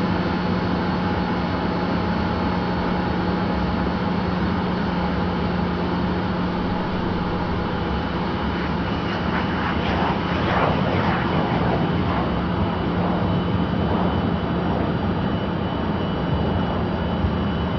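Jet aircraft engine running with a steady drone and a low hum; about halfway through, a rougher rushing noise swells for a few seconds.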